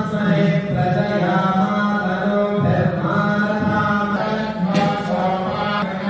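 Voices chanting mantras, held mostly on one note with short breaks between phrases.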